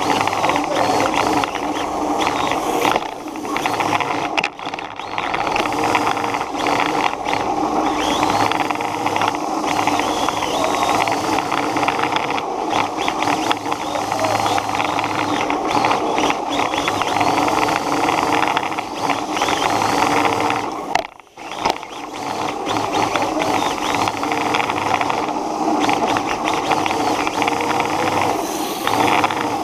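Radio-controlled car driving over pavement, heard from a camera riding on it: steady motor, gear and tyre noise, with a brief sharp drop about twenty-one seconds in.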